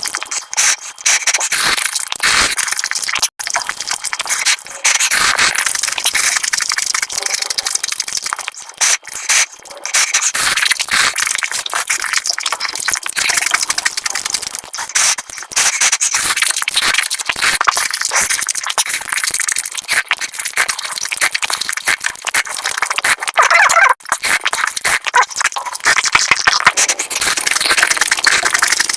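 Eating sounds sped up about five times: rapid chewing, crunching and slurping run together into a dense crackle of fast clicks, broken by a few sudden cuts.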